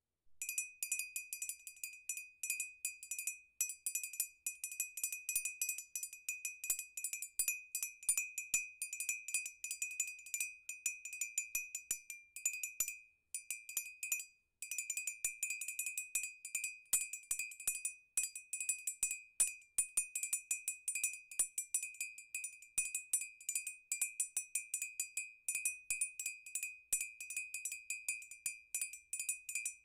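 Glass being struck rapidly and irregularly, ringing at one high pitch, with a short break a little before the middle.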